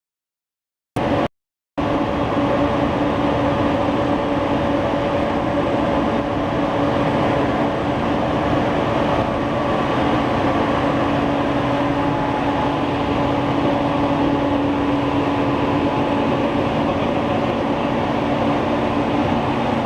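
Six-colour stack-type flexo printing press running: a steady mechanical rumble and hum with a few constant tones, cutting out to silence twice in the first two seconds.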